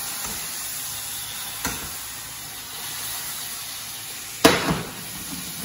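Pan sauce sizzling in a stainless frying pan just after a splash of starchy pasta water, stirred with metal tongs. A light tap about one and a half seconds in, and a loud clank of the tongs against the pan near the end.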